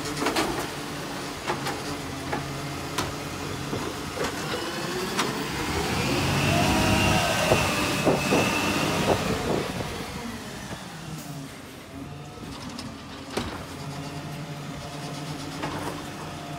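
Side-loading garbage truck's diesel engine running, with sharp knocks from the bin-lifting arm and bin in the first few seconds. From about six seconds in, the engine gets louder and its pitch rises and falls as the truck drives on, then it settles back to a steady idle with a couple more knocks near the end.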